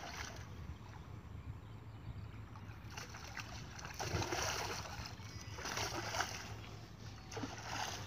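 A bamboo pole beating and sweeping through shallow pond water, splashing about four times in the second half, roughly once every second and a half.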